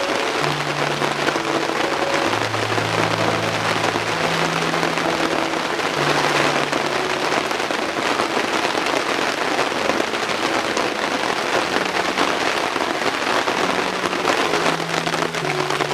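Rain falling steadily in a dense, even hiss. Soft sustained low notes of background music change pitch every second or two underneath.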